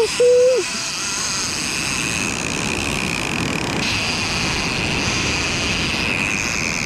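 Spinning reel's drag whining steadily as a hooked shark runs and pulls line off the spool. A short shout is heard right at the start.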